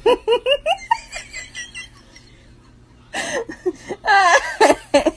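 A person laughing: a quick run of short giggles, then louder laughter from about three seconds in.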